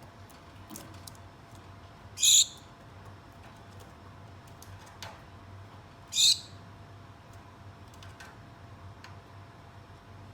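Gouldian finches calling: two short, high calls about four seconds apart, with faint light ticks between them.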